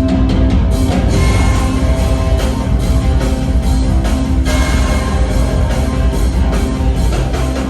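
Background music with a heavy, steady low end and guitar-like tones.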